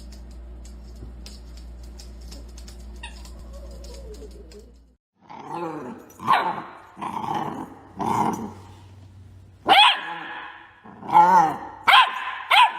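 A steady low hum with faint ticks, then, after a cut about five seconds in, a dog barking and growling in a string of loud, pitch-bending calls separated by short gaps.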